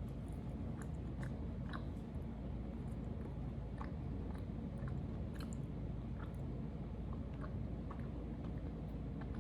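A person chewing a bite of an air-fried snack, with small clicks and crackles from the mouth scattered throughout.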